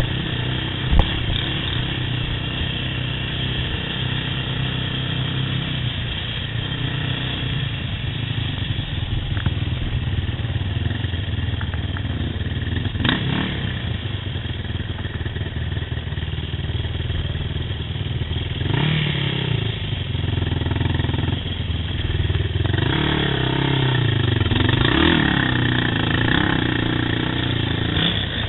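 Yamaha YFZ quad's engine running under way, its pitch rising and falling as the throttle is worked, most of all in the last ten seconds. A couple of sharp knocks stand out, one near the start and one about halfway through.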